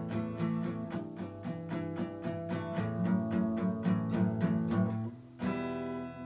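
Acoustic guitar strummed in a steady rhythm of about four strokes a second, then a single chord struck about five seconds in and left to ring out.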